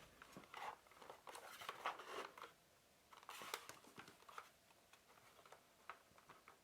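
Faint handling noises of a keyboard being held and turned: soft scattered rustles and light clicks, busiest in the first two seconds or so and again about three and a half seconds in, then a few isolated ticks.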